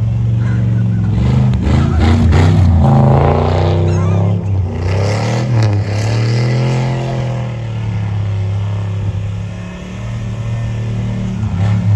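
Cammed 6.0 V8 of a Chevy Silverado drag truck revving hard, its pitch rising and falling again and again as the truck spins donuts with its wheels spinning in snow.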